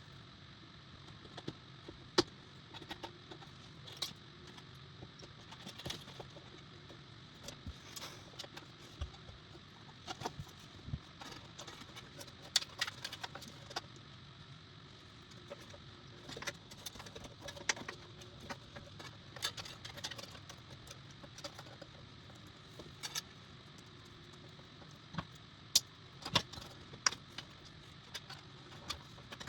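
Scattered small clicks and taps of PC parts and cable connectors being handled and fitted inside a computer case, irregular, with a few sharper knocks about two seconds in and again near the end.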